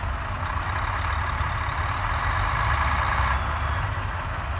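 Heavy truck diesel engine working hard, swelling for a couple of seconds: an Ural truck straining with wheels spinning as it fails to pull a stuck logging truck free.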